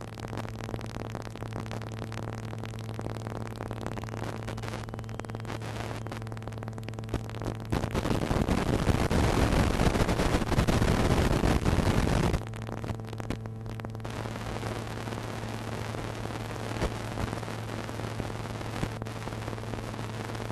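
Steady electrical hum on the audio of an analog FPV video feed. About 8 seconds in it gives way to a loud rush of static for around four seconds as the radio signal breaks up, then the hum returns.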